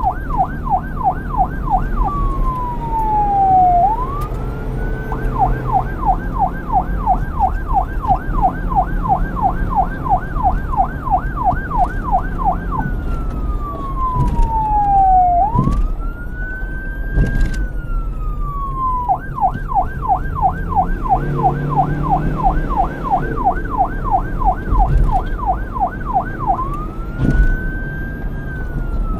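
Police car electronic siren switching between a rapid yelp warble and slow wail sweeps that rise and fall over a couple of seconds each, with a steady low rumble underneath.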